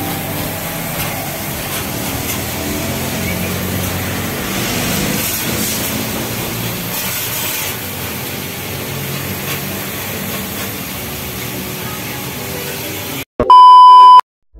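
Steady hiss of a water jet from a hose nozzle spraying onto a car's front AC condenser and radiator fins, with a low machine hum under it. It cuts off abruptly near the end into a short, very loud steady test-tone beep.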